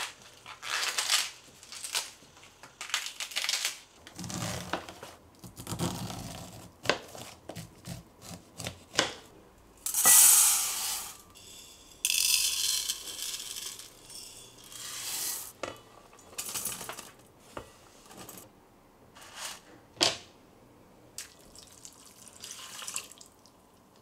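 Kitchen preparation sounds at a rice cooker's inner pot: a series of short pours of water and other liquid over rice and corn kernels, with knocks and scrapes of utensils in between. The longest and loudest pour comes about ten seconds in.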